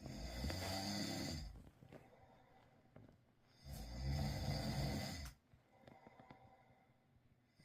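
A man snoring: two long snores, each about a second and a half, roughly three and a half seconds apart, with quiet breathing between them.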